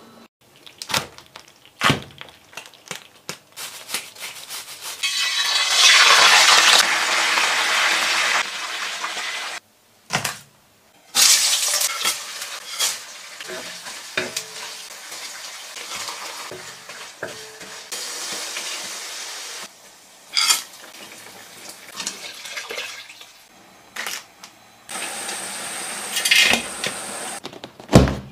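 Stir-frying in a stainless-steel wok: hot oil sizzling in long loud stretches as dried chilies, garlic and spices are tossed, with sharp knocks and scrapes of a wooden spatula against the pan.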